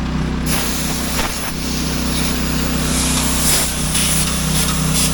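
Heavy farm machine's engine running steadily under load, with a hiss across the high end that comes in about half a second in.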